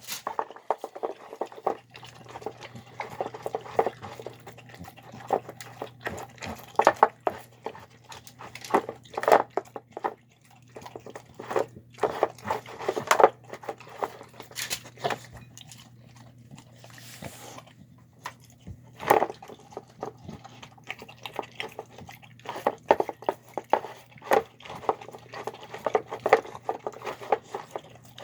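Pit bull–shar-pei mix dog eating homemade chicken, lentils, carrots and rice: wet chewing and lip-smacking in irregular bursts, with a lull of a couple of seconds past the middle.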